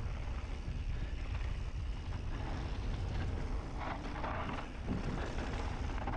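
Mountain bike rolling along a dirt trail: tyre and trail noise under wind rumbling on the microphone, with a few brief louder scuffs around the middle.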